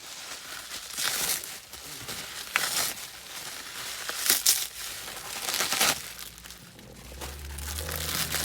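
Bubble wrap being unrolled and crinkled by hand, in irregular crackling rustles. A steady low hum comes in about seven seconds in.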